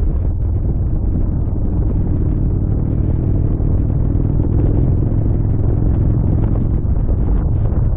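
Indian Chieftain motorcycle's V-twin engine running steadily under way, a loud, even low rumble.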